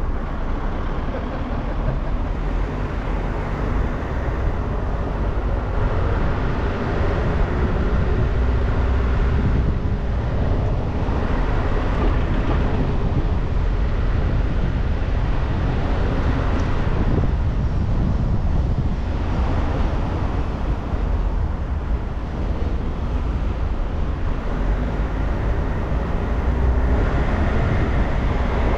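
A bus driving through town streets: steady engine and road noise with a deep rumble that swells and eases several times as it speeds up and slows.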